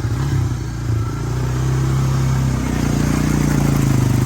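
Honda off-road engine running under load, picking up revs about two and a half seconds in.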